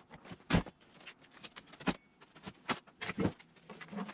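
Items being handled and moved around while sorting a cluttered shop: irregular knocks and clatter, with a few louder thumps about half a second in, near two seconds, and a little after three seconds.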